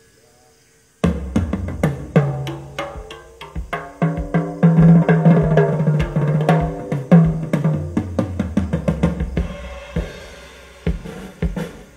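A drum kit recording is played loud through a PA speaker stack: a single 18-inch subwoofer and two 15-inch mid-range speakers. It is a system test on raw drums. After a second of near silence come fast tom fills with booming low notes, bass drum kicks and cymbal crashes. Near the end these thin out to a few separate hits.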